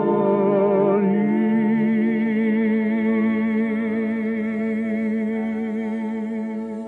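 A singer holds the long closing note of a song with vibrato over orchestral accompaniment. The note tapers off near the end.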